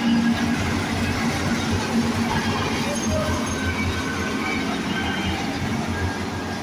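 Satnam 952 combine harvester's diesel engine running steadily at close range, with its tyres churning and splashing through muddy floodwater.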